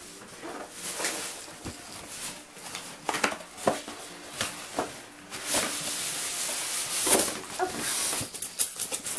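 A cardboard retail box being handled and opened, with its white polystyrene foam insert slid out: irregular rustling, scraping and knocks, with a longer stretch of scraping rustle about halfway through.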